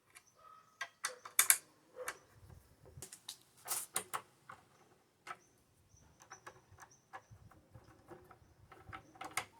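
Handling noise: irregular clicks, light knocks and short rustling scrapes of small objects being picked up and set down, loudest about one and a half and four seconds in.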